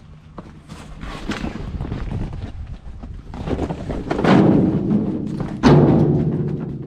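Junk being thrown into a metal dumpster: a run of thuds and clattering, then a sudden loud bang about five and a half seconds in that leaves a low metallic ring fading away.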